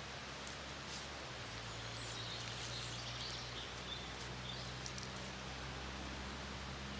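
Steady rush of a waterfall, with small birds twittering briefly in the middle.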